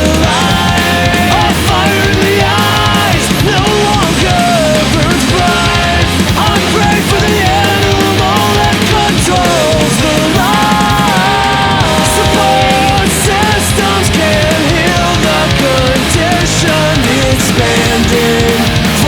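Loud, fast melodic punk rock with heavy-metal-style riffing: distorted electric guitars, bass and drums, with a bending melodic lead line on top.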